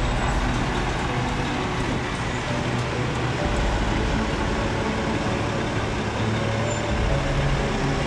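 Heavy diesel work trucks running: a street sweeper truck driving across milled asphalt with dump trucks close by, a steady low engine hum under an even hiss.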